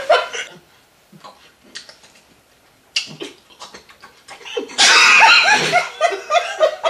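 A person laughing: a short chuckle at the start, then a loud burst of laughter about five seconds in that breaks into shorter laughs.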